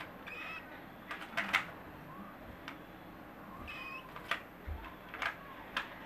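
Baby cockatiels giving short pitched calls, two of them a few seconds apart, with sharp clicks and taps between.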